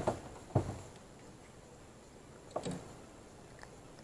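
Two soft knocks about half a second apart, then faint steady background noise with one more short knock a little past halfway.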